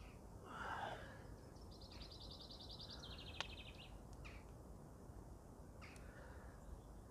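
Faint birdsong outdoors: a rapid trill of quickly repeated high notes about two seconds in, dropping to a lower pitch partway through, after a single lower, louder bird call just before it. A couple of faint clicks follow.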